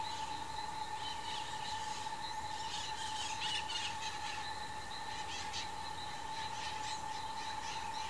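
A steady high insect drone, with small birds chirping in scattered calls over it, busiest about three to four seconds in.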